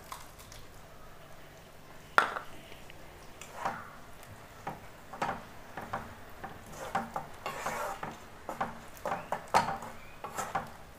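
Spatula stirring and scraping through thick onion curry in a nonstick kadai, with irregular scrapes and taps against the pan. A single sharp knock comes about two seconds in.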